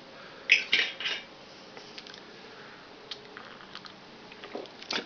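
Ice cubes rattling and clinking in a cup of gin and lime: three short clinking rattles about half a second to a second in, then a few faint ticks.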